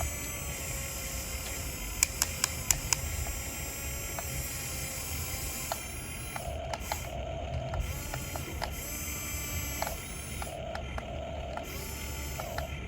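Radio-controlled model excavator's small electric motors whining in stops and starts, their pitch shifting as they work, with four sharp clicks about two to three seconds in.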